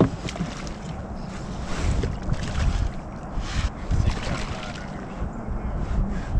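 Wind gusting on the microphone, with splashes and knocks as a hooked bass thrashes at the surface beside the boat and is landed by hand.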